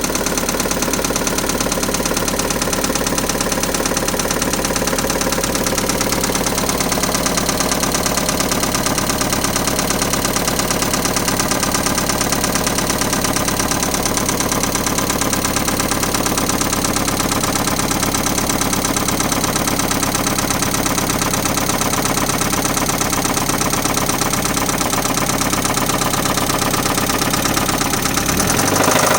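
1994 Mazda Miata's 1.8-litre four-cylinder engine running steadily with a rapid, even knocking tick, which the owner suspects is either engine knock or a bad lifter. The engine speed rises briefly near the end.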